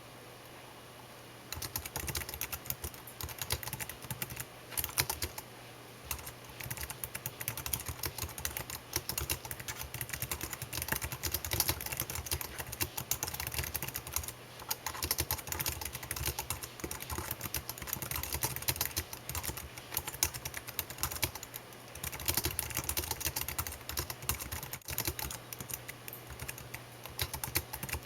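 Rapid, continuous typing on a computer keyboard, a dense patter of key clicks broken by a few short pauses: near the start, about five seconds in, and just past twenty seconds.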